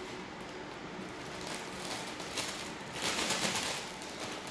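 Thin clear plastic bag crinkling as it is handled. It builds about a second and a half in and is loudest near the end.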